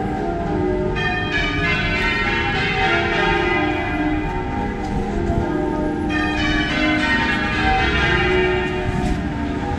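Church bells pealing: several bells struck one after another, their tones ringing on and overlapping.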